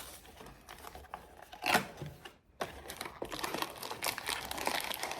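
A sealed blind box's packaging being handled and opened by hand: crinkling and tearing with scattered small clicks, a louder rustle a little under two seconds in, then steady crackling.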